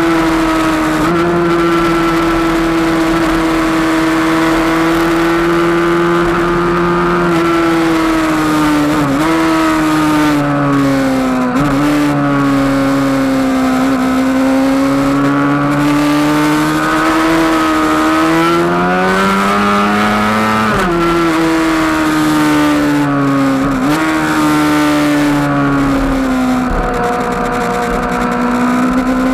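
Kawasaki ZX-6R 636 inline-four sportbike engine at high revs on track, heard onboard with wind rush. The pitch holds high, drops sharply a few times as the rider changes down for corners, and climbs slowly again as he drives out.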